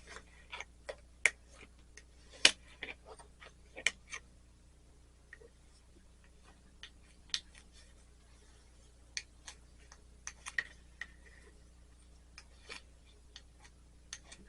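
Irregular sharp clicks and light taps of a glass piece and a burnishing tool being handled, as copper foil is folded over the glass edge and pressed down.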